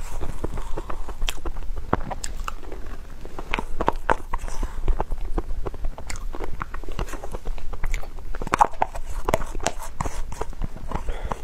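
Close-miked chewing and wet mouth clicks of someone eating a soft cream dessert, irregular and continuous.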